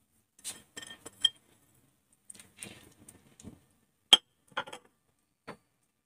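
Wooden spatula stirring fish gravy in a black kadhai: scattered clinks and knocks against the pan with some sloshing. The loudest is a single sharp knock about four seconds in, followed by a few lighter taps.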